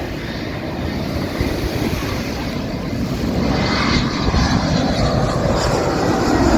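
Jet airliner engines, a dense rushing noise that grows steadily louder as the plane approaches.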